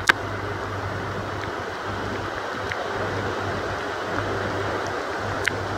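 Steady rushing noise of storm wind and rain, with a low hum underneath. A sharp click comes just after the start and another near the end.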